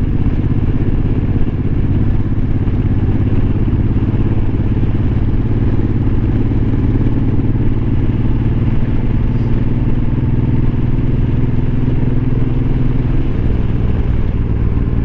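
Suzuki Boulevard M90's 1,462 cc V-twin engine running steadily while the motorcycle cruises at low road speed, heard through a lavalier mic on the rider. The engine note drops slightly about 13 seconds in.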